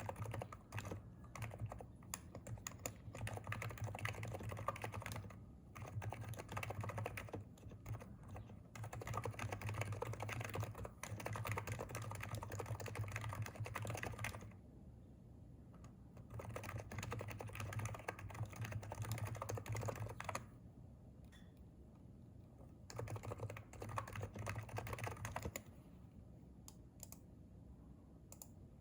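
Typing on a Hansung electrostatic-capacitive (non-contact) keyboard: runs of rapid keystrokes broken by pauses of a second or two. The typing thins out to a few scattered keystrokes near the end.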